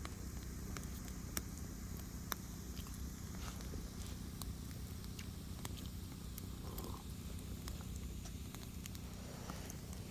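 Firewood burning, crackling with scattered sharp pops over a steady low noise.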